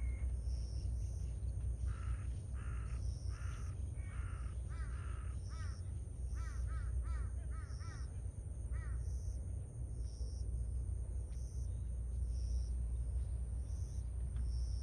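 A crow calls in a quick run of harsh caws that stops a little past halfway. Underneath are a steady low rumble and a faint high chirp repeating about once a second.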